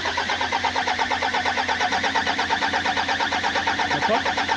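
Starter motor cranking a rebuilt Toyota 2KD-FTV diesel engine, with an even chug of roughly seven compression pulses a second and no sign of the engine catching.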